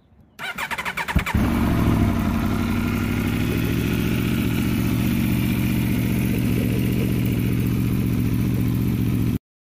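2022 Aprilia RSV4's 65-degree V4 engine, breathing through a newly fitted Akrapovic carbon slip-on exhaust, is cranked by its electric starter and catches about a second in, then idles steadily. The sound cuts off suddenly near the end.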